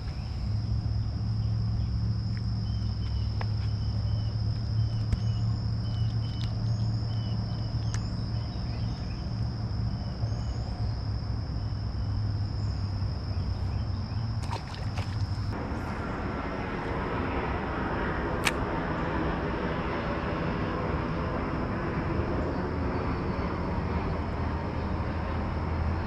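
Creekside outdoor background with a low steady rumble, a steady high insect drone and short repeated bird chirps. About fifteen seconds in come a few sharp clicks, then the whir of a spinning reel being cranked to retrieve the lure.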